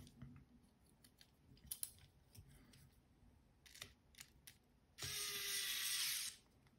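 Small electric precision screwdriver whirring for about a second and a half, driving a small screw into a carbon-fibre drone frame. Before it come light scattered clicks of the bit and the parts being handled.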